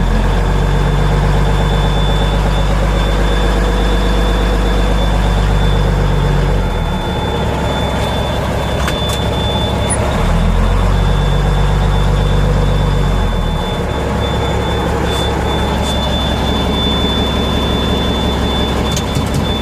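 Cummins NHC 250 14-litre six-cylinder diesel of an M923 5-ton military truck, heard from inside the cab as it pulls forward. The engine note rises and holds for several seconds twice, dropping back in between, as it works against a parking brake that is not fully released.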